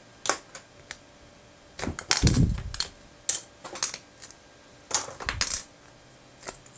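Plastic LEGO bricks clicking as they are pried off a cured silicone mold and clattering as they are set down on the table and among other bricks. A quick run of sharp clicks, busiest about two seconds in and again around five seconds.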